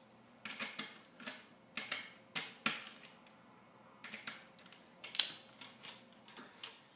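Screws being threaded by hand into the holes of a plastic diffuser: a string of irregular clicks and small knocks, the loudest about five seconds in.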